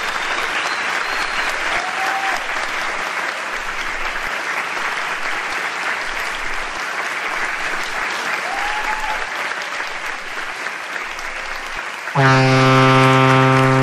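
Steady applause from a crowd. About twelve seconds in, a loud held low note with a buzzy, overtone-rich tone comes in over it.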